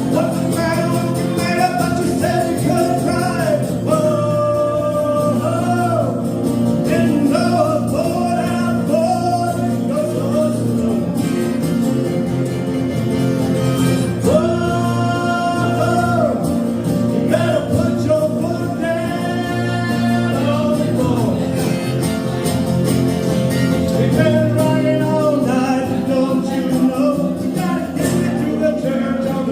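Live country song: a male voice singing held phrases over guitar accompaniment.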